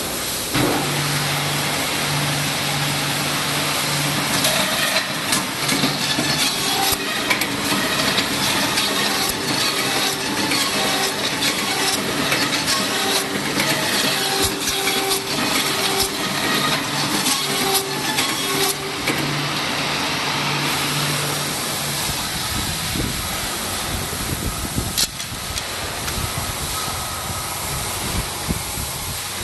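Bamboo stick-making machine running: a steady machine hum with dense sharp clicks and rattles as bamboo is cut and fed through, thinning out after about 19 seconds, with one sharp crack near the end.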